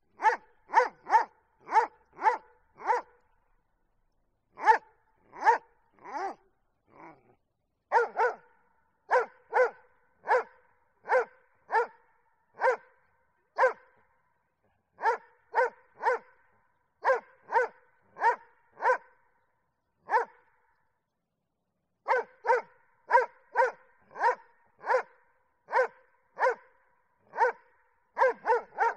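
A dog barking repeatedly in runs of short, sharp barks, about two a second, broken by a few brief pauses. A few fainter calls fall in pitch partway through.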